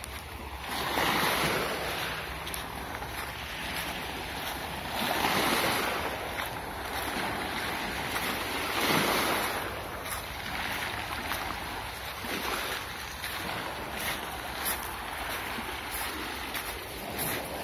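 Small sea waves breaking and washing over a pebble beach, swelling in surges every few seconds, with wind rumbling on the microphone.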